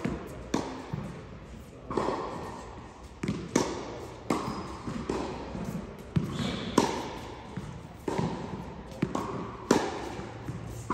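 Tennis ball being struck with a racket and bouncing on the court during a practice rally: a sharp hit roughly every second, each echoing in a large indoor hall.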